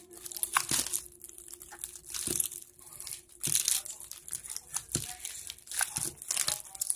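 Hands kneading wet slime, which has just had a spoonful of water added to stop it being sticky, giving a string of irregular short noises.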